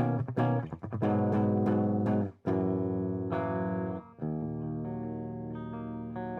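Electric guitar strung with worn-in D'Addario EXL115 11–49 strings, played through an EVH 5150 III amp: quick picked notes, then held chords cut short twice, the last left ringing.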